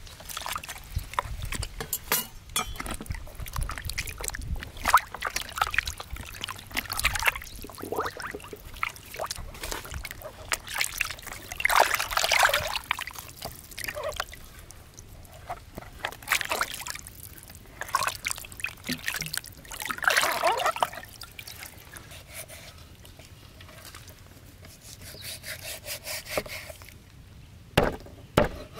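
Water splashing and dribbling as hands wash and turn a boiled pig's head in a plastic basin of water. Near the end come a couple of sharp cleaver chops into the head on a board.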